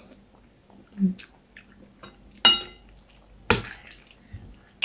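Metal spoon and fork clinking against a ceramic soup bowl while eating noodle soup: a few short clinks, the loudest about two and a half and three and a half seconds in, between quieter eating sounds.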